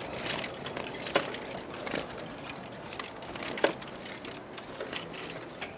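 Seized wild birds, several short calls and sharp clicks scattered over a steady background of bird sounds.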